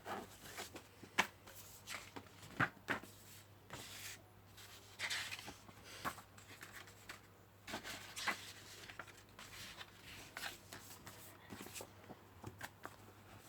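A DVD case being handled and opened: irregular plastic clicks and taps mixed with short rustles, the sharpest clicks about one and two and a half seconds in.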